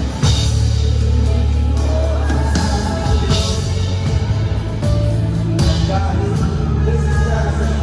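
Gospel band music with singing, over a heavy sustained bass line and regular drum and cymbal hits.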